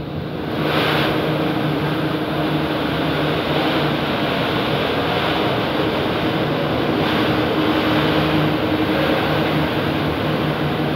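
Three-layer co-extrusion blown film line running: a steady machine hum under a broad rushing noise of film running over the rollers and winder, getting louder about half a second in.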